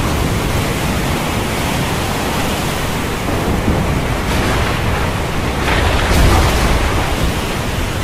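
Loud steady rushing noise, like wind or surf static, from an end-screen sound effect; it swells briefly about four seconds in and again around six seconds in.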